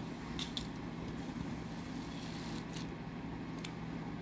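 A few light plastic clicks as a cat's paw knocks tiny Z scale model train cars against their track: two close together about half a second in, then more near the end. A steady low hum runs underneath.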